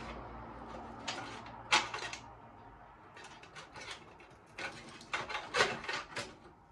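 Irregular clicks and knocks of hard parts being handled, a dozen or so. The loudest come about two seconds in and again near six seconds in.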